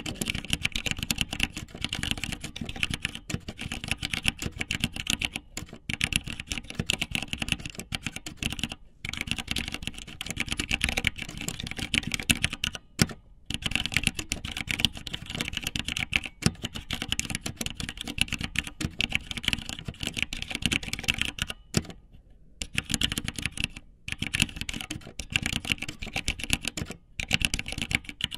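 Keyboard typing: a fast, continuous run of key clicks, broken by short pauses every few seconds.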